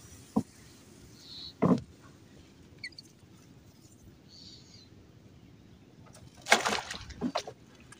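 Two sharp knocks of a wooden pole against a wooden boat, then, about six and a half seconds in, a loud splash with a few smaller splashes after it as a multi-pronged fish spear is thrown into the shallow water.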